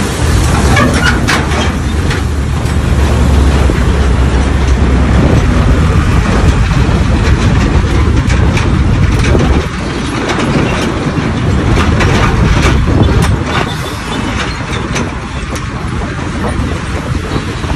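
Wind rushing over the microphone, with road and traffic noise, from a motorcycle riding beside container trucks. The deep rumble eases about ten seconds in.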